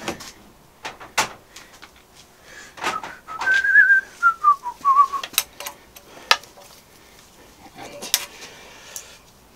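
A person whistling a short, wavering tune for about two seconds, a few seconds in, between sharp clicks and knocks of spanner work on the engine.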